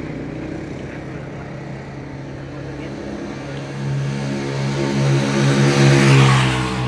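A motor vehicle driving past on the road: its engine hum grows louder, peaks with a rush of tyre noise about six seconds in, then falls away.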